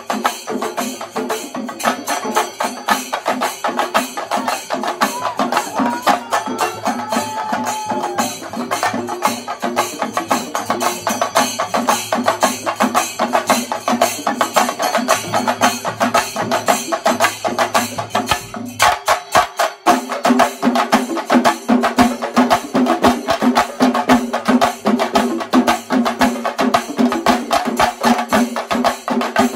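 A chenda drum ensemble playing: many cylindrical drums struck rapidly with sticks in a dense, fast rhythm. A little past two-thirds of the way in the playing briefly drops away, then comes back louder and fuller.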